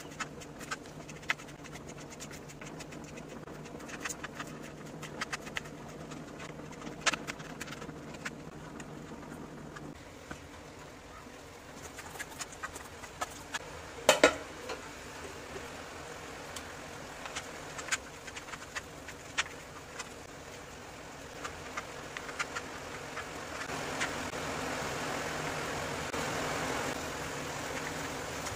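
Kitchen knife tapping and slicing through cabbage and onion on a plastic chopping board, in scattered light taps. About halfway through a metal spoon clinks and scrapes against a steel mixing bowl, the loudest sound.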